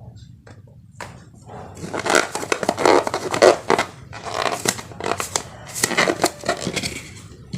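Slime being worked by hand: a run of irregular crackling, scraping squishes that starts about a second in.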